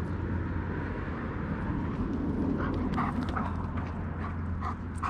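A steady low rumble, with a German shepherd panting in quick, short breaths starting about halfway through, a few breaths a second.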